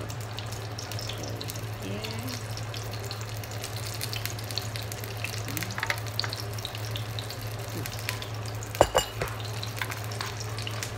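Lumpia (spring rolls) sizzling steadily as they fry in oil in a pan, over a steady low hum. A couple of sharp knocks about nine seconds in.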